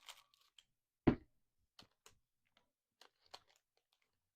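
Trading cards being handled on a tabletop: one soft knock about a second in, then a few faint clicks and ticks.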